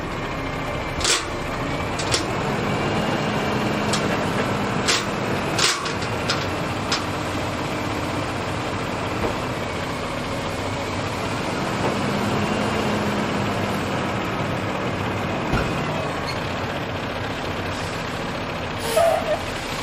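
Dump truck's diesel engine running steadily while its raised bed tips out a load of sand, with a few sharp knocks and clanks from the truck body scattered through.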